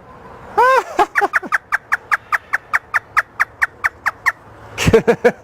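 Talking parrot imitating a hysterical human laugh: a couple of drawn-out opening notes, then a fast run of short 'ha' notes at about six a second for some three seconds, with another short burst near the end.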